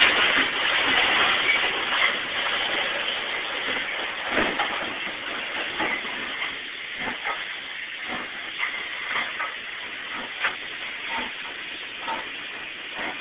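Steam train: a steady hiss, loudest at the start and easing off over the first few seconds, with irregular clicks and knocks from the train's wheels on the rails.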